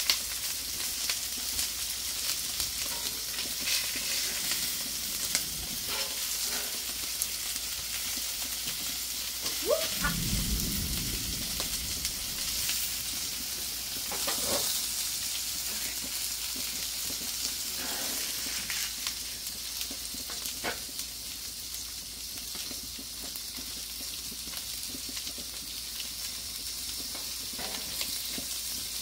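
Hamburger patties and buns sizzling steadily on a Blackstone flat-top griddle, with occasional clicks and scrapes of a metal spatula. A short low rumble comes about ten seconds in.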